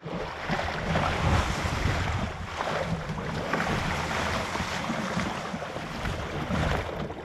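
Wind buffeting the microphone over the rush of choppy sea, with waves slapping and splashing against a sea kayak's bow and deck at irregular moments.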